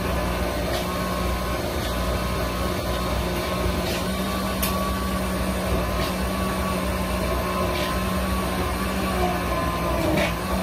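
Countertop blender running steadily, puréeing a salsa of pineapple, tomatillos and jalapeño, with a few faint clicks.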